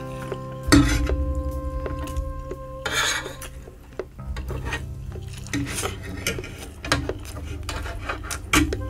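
Metal fork and spoon scraping and clinking against a serving tray as the last food is scraped up, with several sharp clinks, the loudest about a second in. Background music plays underneath.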